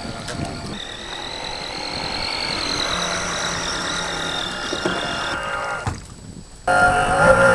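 RC speedboat's outboard motor whining as the boat runs across the water, the high whine wavering in pitch and growing louder for a few seconds before dropping away. Music comes in near the end.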